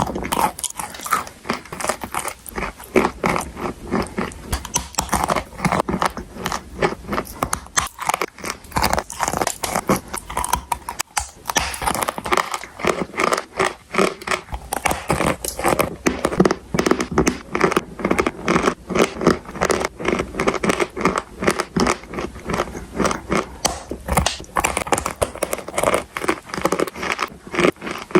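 Edible chalk and clay being bitten and chewed: a rapid, unbroken run of crisp crunches.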